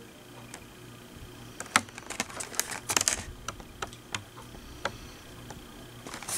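A macaron box with a plastic tray being handled in the hands, giving irregular light clicks and crackles that bunch together about two to three seconds in.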